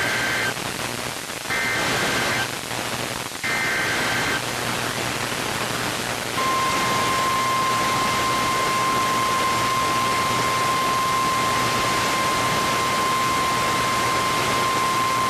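NOAA Weather Radio Emergency Alert System header over radio hiss: the end of one short burst of warbling two-pitch digital data tones and two more bursts about a second apart, then the steady single-pitch warning alarm tone, held for about nine seconds. The sequence announces a new warning about to be read.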